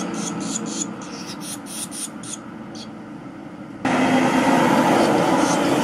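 Barn swallow nestlings begging with rapid high chirps, about four or five a second, as a parent feeds them at the nest; the chirping dies away about halfway through. A steady low background rumble runs underneath and turns suddenly louder near the end.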